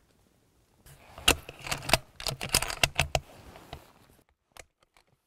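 A rapid, irregular run of clicks and clatter lasting about three seconds, starting about a second in, from the rifle being handled after the shot.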